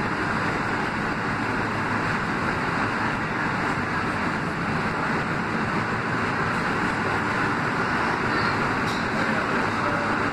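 Steady running noise of an R160 subway car moving through a tunnel: the wheels on the rails make an even rumble that holds at one level.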